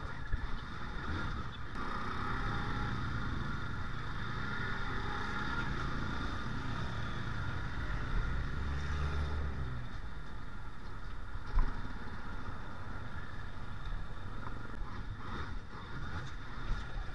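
Motorcycle ride in traffic: the engine running steadily under a wash of road and traffic noise. A short sharp knock about eleven and a half seconds in.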